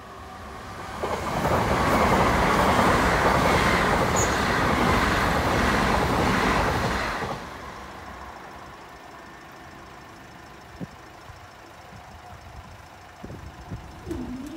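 Eight-car Class 379 Electrostar electric train passing through at speed: a loud rush of wheels on rail that swells about a second in, holds for about six seconds, then falls away quickly as the train recedes.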